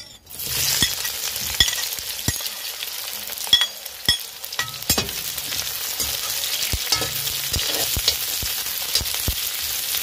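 Sliced onion and garlic dropped into hot oil in a steel wok, sizzling steadily from about a third of a second in. The spatula stirring them clicks and scrapes against the wok at irregular intervals.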